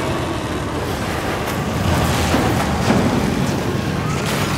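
Steady low rumbling outdoor street ambience, like traffic noise.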